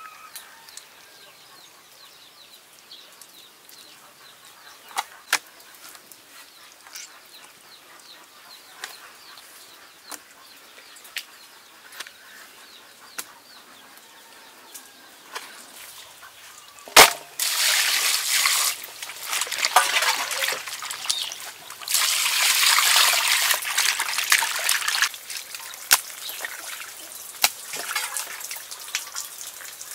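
Small clicks and taps of a large knife cutting frogs on a board. More than halfway through comes a single sharp knock, then water poured and splashing over the frogs in three bursts of a few seconds each.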